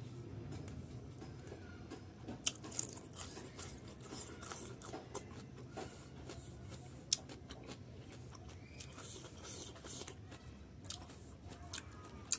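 Close-up mouth sounds of a man chewing rice and boiled pork fat eaten by hand, with scattered sharp clicks. The loudest clicks come about two and a half seconds in and about seven seconds in.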